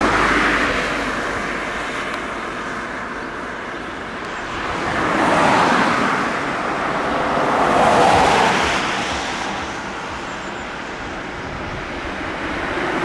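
Road traffic: vehicles passing one after another, each a hiss of tyres and engine that rises and falls, three times over.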